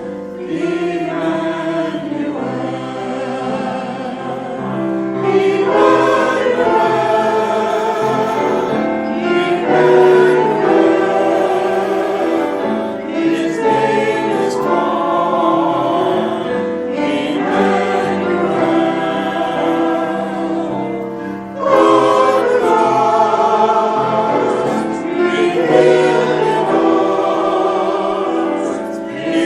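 A choir singing in harmony, in long held phrases with short breaks between them every few seconds.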